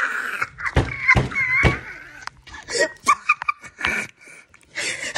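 A person's voice in short bursts, like laughing or exclamations, with several sharp knocks and thuds as the phone is handled.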